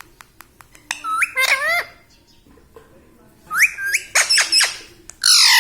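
Pet parrot calling in short clusters of sharp, gliding squawks and whistles: about a second in, again past the middle, and loudest near the end. A run of faint rapid ticks at the start.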